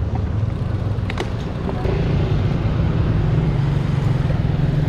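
A motor vehicle's engine running close by, a steady low hum that rises a little in pitch about two seconds in, over wind and road rumble from riding. A single sharp click just after a second in.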